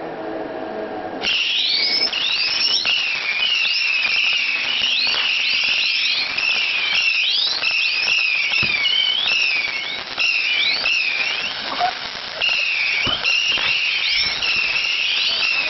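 Whistling ground fireworks going off: many overlapping shrill whistles that rise and fall in pitch, with scattered crackles and pops. They start about a second in.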